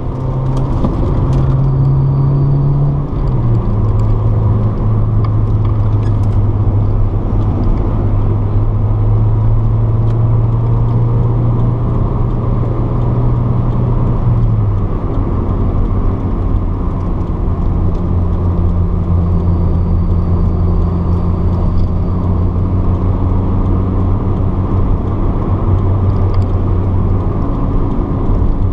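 Honda car's engine heard from inside the cabin while being driven on track, a steady drone over tyre and road noise. The engine note steps down about three seconds in and again about fifteen seconds in.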